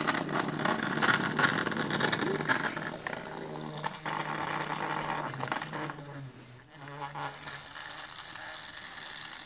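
Battery-powered Hamsters in a House toy hamster scurrying around its plastic playhouse, its small motor buzzing with a rapid rattling clatter of gears and wheels. The noise drops briefly about six and a half seconds in, then starts again.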